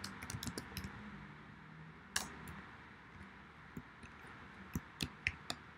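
Faint, sparse keystrokes on a computer keyboard: a few taps at the start, one about two seconds in, and a quicker run of several near the end.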